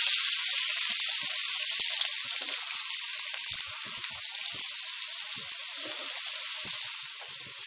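Chopped onions sizzling in hot oil just after being added to the pan: a steady frying hiss with scattered crackles, loudest at first and slowly dying down.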